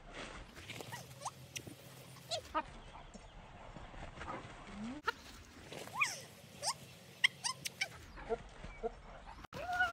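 Border collie whining and yipping in excitement: short high-pitched calls that glide up or down, scattered throughout, with a longer call just before the end.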